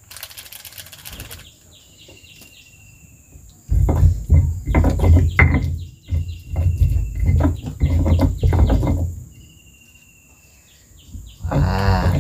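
Stone pestle grinding and knocking chili sambal in a stone mortar (cobek and ulekan), in loud rough bouts from about four to nine seconds in. A bird gives a short falling whistle every few seconds.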